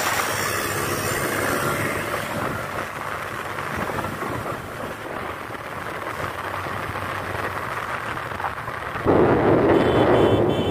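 Wind rushing and buffeting over the microphone of a moving motorcycle, with motorcycle engine noise underneath. About nine seconds in the sound turns suddenly louder.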